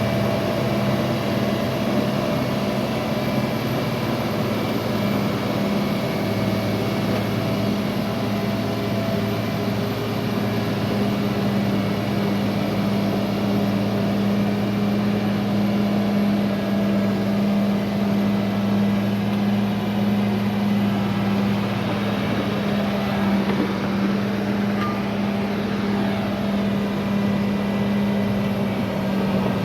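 Heavy equipment's diesel engine running steadily with a constant low hum, its note deepening about six seconds in.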